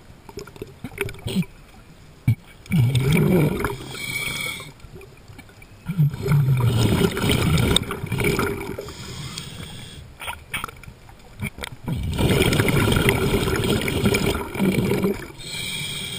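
A diver's exhaled breath bubbling out underwater, recorded close by at the mask: three long bubbling bursts a few seconds apart, with quieter gaps between them.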